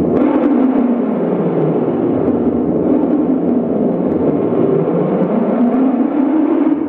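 Loud, dense electronic drone from an improvised live sample performance, a noisy rumble whose pitch slowly sinks and rises again every few seconds.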